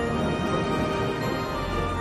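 Documentary title theme music: sustained chords over a deep bass.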